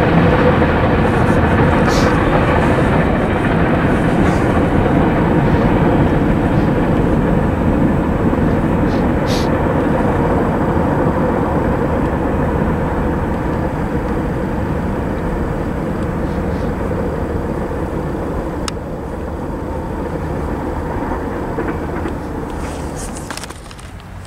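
Freight train cars rolling away on the rails: a steady clattering rumble of steel wheels that slowly fades as the last cars recede, with a few brief high-pitched squeaks.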